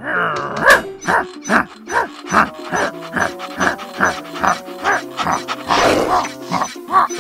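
Cartoon background music with a quick, even pulse of short pitched notes, about two to three a second, under a cartoon dog's vocal sound effects.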